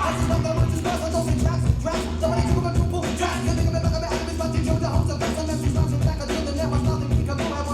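Music with a heavy repeating bass line and a steady beat, the kind played for a breaking battle.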